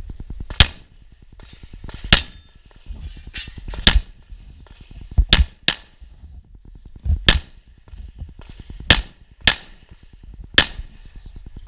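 STI Trojan single-stack pistol in .38 Super firing about nine shots during an IPSC course of fire, mostly single shots a second or two apart with two quick pairs.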